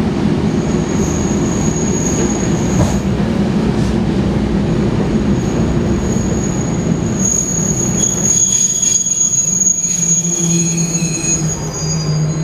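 Taiwan Railways Fu-Hsing passenger coach rolling alongside a station platform, heard from inside the carriage. The wheels give a low rumble, with a high-pitched squeal that starts about half a second in, breaks off near three seconds and returns. In the last few seconds it spreads into several squealing tones at once.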